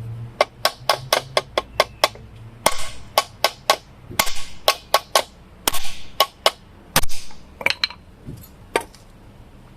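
Hammer blows on a drift, knocking the old ball joint out of the car's lower control arm: a quick run of sharp metallic strikes, about three a second, ending shortly before the end.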